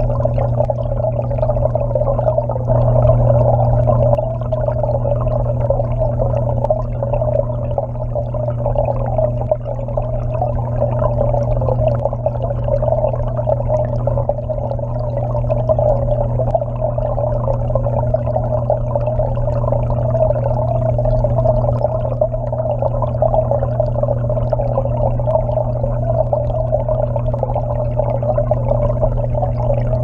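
Water circulation in a waterfall aquarium: a steady, muffled rush of churning water with a low pump hum underneath.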